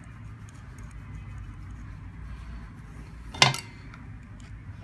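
A single sharp metallic clink about three and a half seconds in, as steel needle-nose pliers meet the aluminium hot-end heater block, over a low steady hum and faint handling ticks.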